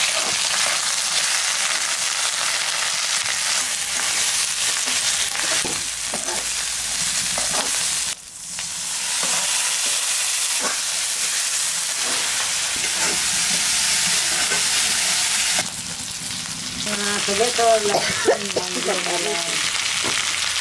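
Onions, green chillies and spice pastes sizzling in hot oil in an iron kadai, stirred with a spatula. The sizzle drops away briefly about eight seconds in, then builds again. A short wavering, pitched sound stands out near the end.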